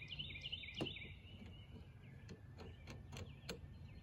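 Small birds chirping in the first second or so, then about six light, sharp clicks and taps from a threaded plastic knob being unscrewed and handled on the mount.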